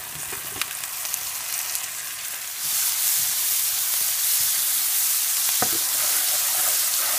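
Chopped mushrooms and peppers frying in hot oil in a wok with onion and garlic, stirred with a spatula. The sizzle jumps much louder about two and a half seconds in and stays loud, with a few short clicks and scrapes.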